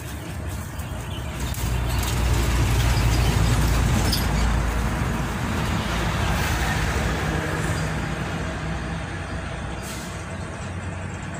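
A heavy road vehicle passing close by: a deep engine and tyre rumble that swells about two seconds in, is loudest for a few seconds, then slowly fades.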